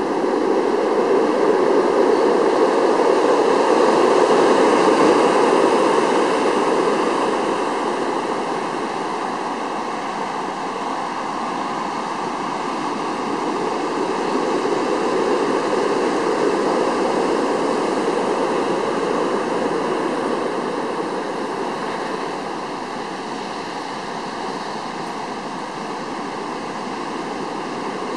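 Ocean surf breaking and washing up the beach as a continuous rush, swelling louder twice, about five seconds in and again about sixteen seconds in.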